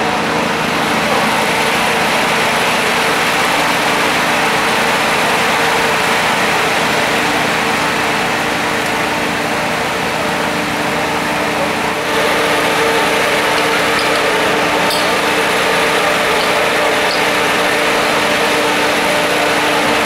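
A motor running loud and steady, with a constant hum under a dense rush of noise. The hiss grows brighter about twelve seconds in.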